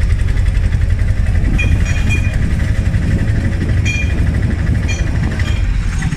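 Steady low rumble of a vehicle engine and road noise, heard from on board while moving along a busy street. A few short, high beeps of traffic horns come in at about two seconds, four seconds and five seconds.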